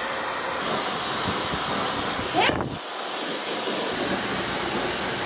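Handheld hair dryer blowing steadily on a wet cat's fur, drying it after its bath. A short rising sound cuts in about halfway through.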